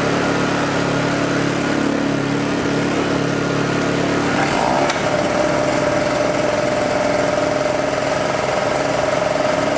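Small portable generator engine running steadily just after starting. About four and a half seconds in its note changes, and a higher steady tone takes over.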